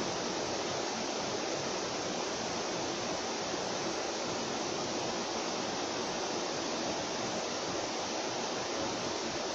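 Electric fan running steadily, giving an even whooshing air noise with no rhythm or change.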